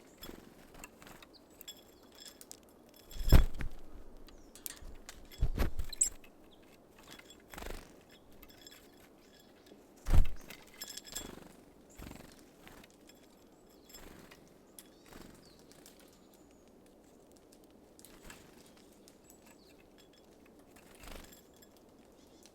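Small birds at a feeder: irregular knocks and thuds as they land, hop and peck at sunflower seeds, the loudest about three and ten seconds in, with a few faint high chirps.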